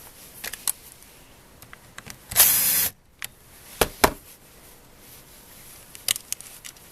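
Electric screwdriver whirring for about half a second, driving a screw into the tablet's cover plate, with sharp clicks of small metal parts and tools being handled before and after.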